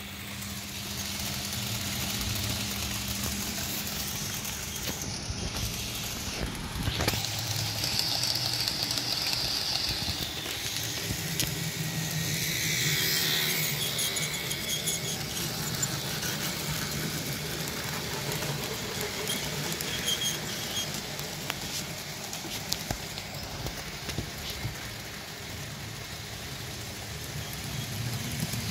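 Model diesel locomotives (a Fleischmann V100 and a Roco V90) running with their wagons on sectional track. The electric motors and gears give a steady whir, the wheels click, and a high squeal comes in briefly about 8 seconds in.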